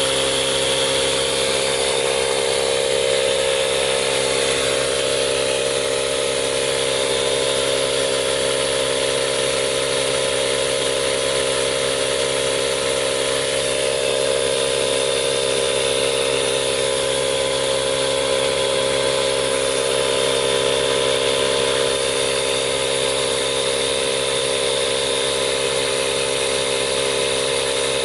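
Chevy Volt tire repair kit's air compressor running steadily on plain air, flushing the liquid-rubber sealant through into the tire.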